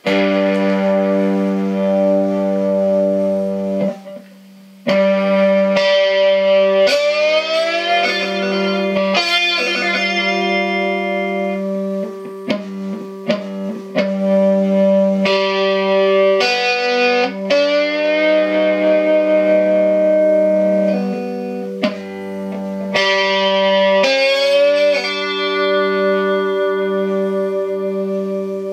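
Homemade scrapyard electric guitar, tuned open to G, strummed through an amplifier with some distortion. Chords ring out every second or few, over a steady low drone, with several sliding bends in pitch and a brief gap about four seconds in.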